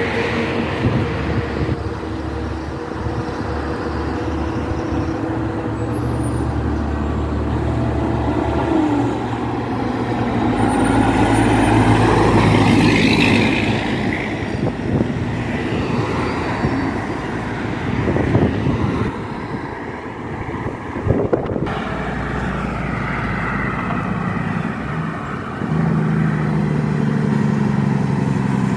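Heavy diesel trucks and cars passing on a highway. A flatbed semi-trailer's diesel engine swells loudest as it goes by about midway, and a tanker semi-truck's engine grows louder as it approaches near the end.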